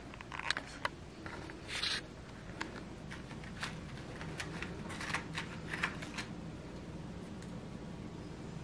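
Quiet handling sounds of Oreo cookies being taken from their plastic package and set down on crescent roll dough on a plastic cutting board: scattered light clicks and taps, with a brief rustle about two seconds in.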